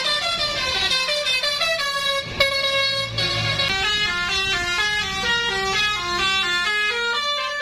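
A bus's Basuri telolet horn playing a fast melody, a continuous run of short horn notes that step up and down several times a second.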